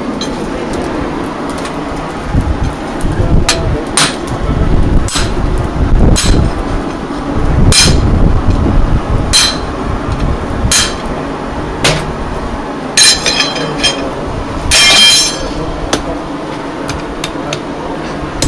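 Hand hammer striking a red-hot iron bar on a steel anvil: sharp blows every second or two, starting a few seconds in, some with a ringing clang from the anvil, and lighter taps near the end. A steady low rumble runs underneath.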